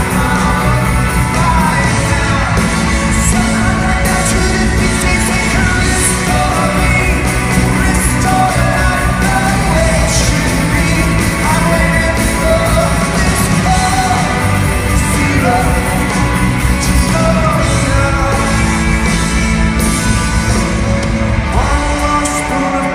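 A live rock band playing with a singer, recorded from among the audience in a large arena, so the sound is loud and echoing, with yells from the crowd.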